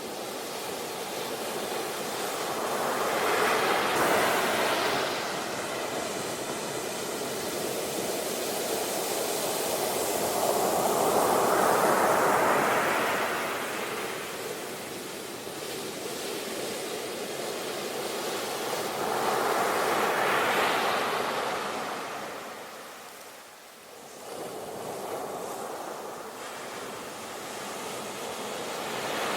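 Sea waves breaking and washing ashore in slow surges, each rising and falling over several seconds, about eight seconds apart, with a brief lull shortly before the last wave builds near the end.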